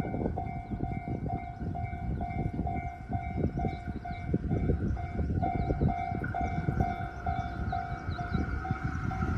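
Japanese railroad crossing alarm ringing its steady electronic "kan-kan", about three strikes a second, while a JR Kyushu electric train clatters through the crossing with a heavy rumble of wheels on rails.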